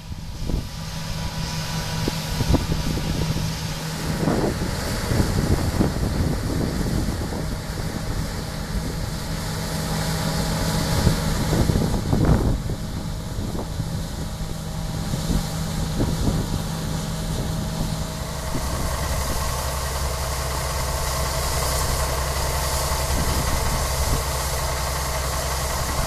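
2013 John Deere combine running as it harvests wheat: a steady drone of engine and threshing machinery, with gusts of wind on the microphone. About two-thirds of the way through, the sound changes to a lower, steadier engine hum.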